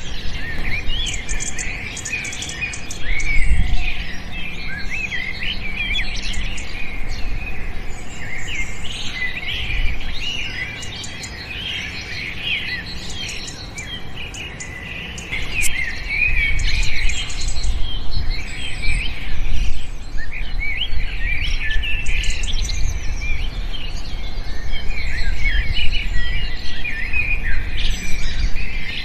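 A chorus of many small birds chirping and twittering over one another without a break. A low rumble comes and goes underneath.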